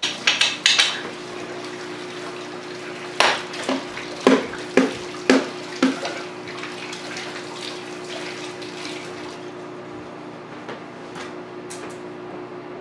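Kitchen faucet running into the sink as sticky hands are rinsed, over a steady low hum. A few sharp clatters near the start and a run of five or six knocks between about three and six seconds in.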